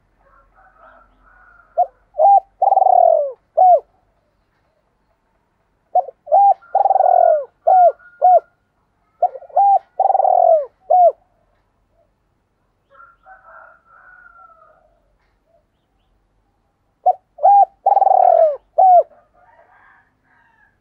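Spotted dove cooing: four phrases, each of two short coos, a long falling coo and a last short coo. Faint chirps can be heard between the phrases.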